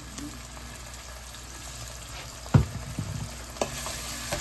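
Diced onions frying in oil in a pan with a steady sizzle, stirred with a wooden spoon. A sharp knock about halfway through is the loudest sound, followed by a few lighter knocks.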